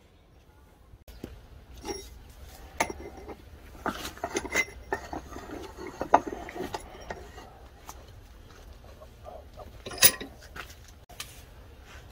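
Steel bearing races clinking and knocking against each other and against a steel bench vise as they are handled and clamped. Irregular sharp metal clinks start about a second in, with the loudest knock about ten seconds in.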